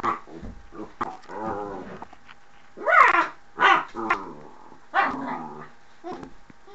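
Dog growling and giving several short barks, the loudest about three seconds in.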